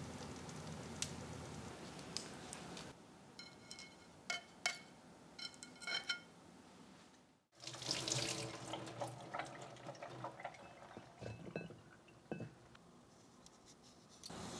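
A few ringing clinks of glassware, then, about halfway through, a kitchen tap runs into a glass pot at a stainless sink, splashing, with scattered knocks of the pot and utensils.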